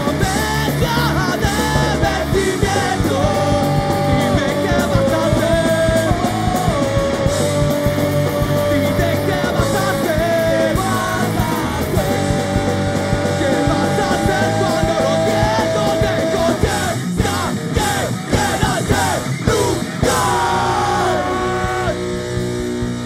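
Live rock band playing: drums, bass and electric guitars with a vocal, a run of hard drum hits about three-quarters of the way through.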